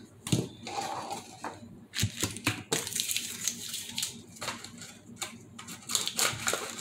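Kitchen items being handled on a stovetop: a run of irregular clicks, knocks and rustles as boxes, cans and a plastic measuring cup are picked up and set down.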